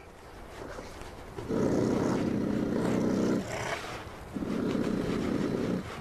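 A netted honey badger giving two long, harsh growls, the second a little shorter, with a short pause between them.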